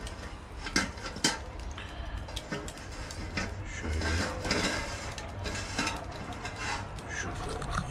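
Stainless-steel wire grate of a Florabest smokeless charcoal grill clinking and rattling against the grill's stainless bowl as it is turned and set in place, with a string of irregular sharp metallic knocks.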